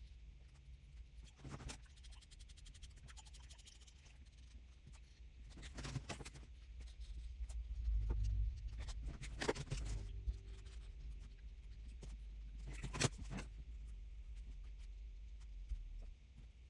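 Faint scratching of a brush-tip marker stroking across a small paper card, with a few sharp clicks and taps as the card and pen are handled, the loudest near the end, over a low rumble.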